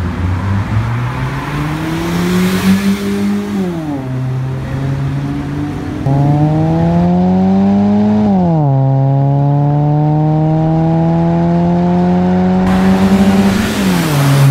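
2014 Toyota Vios four-cylinder engine heard through an aftermarket catback exhaust, accelerating hard: the note climbs in pitch, then drops sharply at each of three upshifts.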